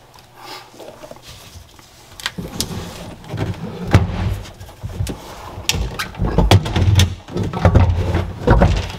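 Irregular knocks, thumps and scraping from hands working on an engine and its fittings inside a jet-ski hull, starting after about two quiet seconds; the loudest thumps come about four seconds in and again near the end.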